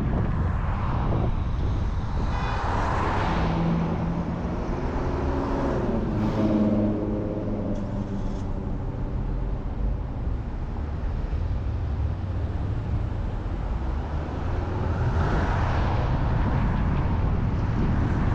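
Steady road and wind noise from a car driving on a city street. It swells twice, about three seconds in and again about fifteen seconds in, and a vehicle's engine note is heard for a few seconds in the middle.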